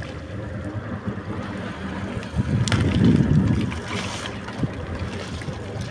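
Low rumble of a fishing boat under way, with wind buffeting the microphone, as a gillnet full of fish is hauled in over the side. The rumble swells louder about two and a half seconds in, with a single sharp knock just after.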